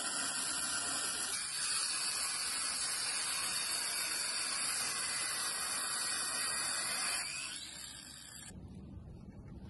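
Angle grinder with a cutting disc grinding through an air compressor's metal casing: a steady, harsh hiss with a high whine. It dies away about seven seconds in.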